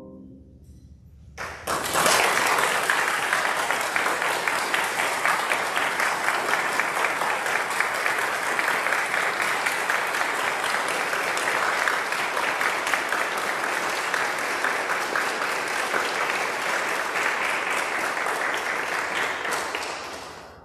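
An audience applauding: a keyboard's last chord dies away, then clapping starts about a second and a half in, holds steady and dense, and tapers off near the end.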